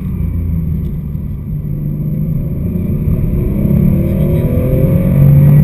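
Porsche 911 SC's air-cooled 3.0-litre flat-six, heard from inside the cabin, runs at moderate revs and then accelerates hard from about three seconds in. Its pitch rises and it grows louder toward the end.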